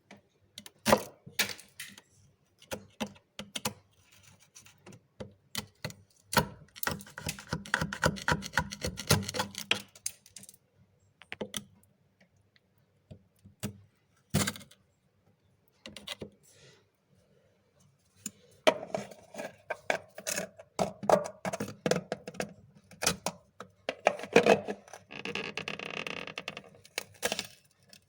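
Freezer frost crunching and crackling in irregular clusters of sharp cracks. A dense run of rapid crackling comes about a third of the way in, and another long, busy run fills the last third, after a quieter stretch with only a few cracks.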